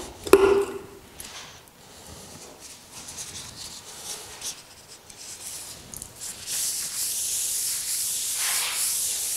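A plastic bottle cap clicks open, a wipe rustles softly as it is folded, then from about six seconds in a wipe wet with degreaser is rubbed across a painted car panel with a steady swishing.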